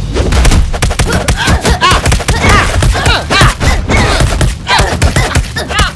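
Cartoon fight sound effects: a rapid, dense flurry of punch and kick impacts, with short gliding cries over them.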